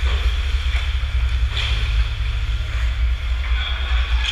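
Ice rink game sound: a steady low rumble with a faint hiss of skates on the ice and a few brief scrapes.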